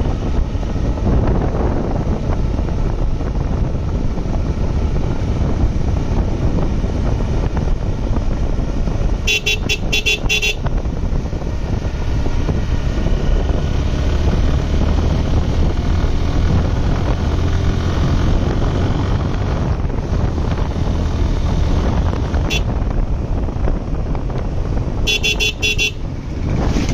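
Wind buffeting the microphone over road and engine noise during a motorcycle ride, with a horn sounding a quick series of short beeps about nine seconds in and again near the end.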